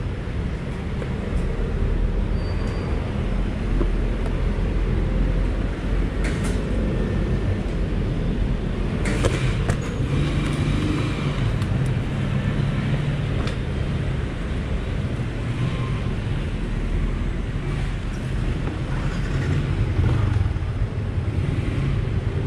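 Steady low motor-vehicle rumble, with a few sharp clicks and knocks around six seconds in and again around nine to ten seconds in.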